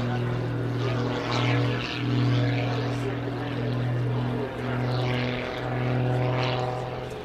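Pitts S-2S Special aerobatic biplane's propeller engine running at a steady, high-power drone, with brief dips a few times as the aircraft climbs vertically and tumbles.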